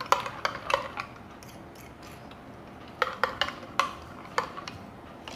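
Sharp clinks and taps of a spoon and glassware: a few in the first second, then several more from about three seconds in.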